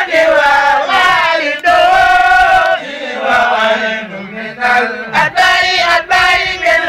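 Voices chanting a drawn-out melody, the notes held long and sliding in pitch, with a quieter, lower passage around the middle.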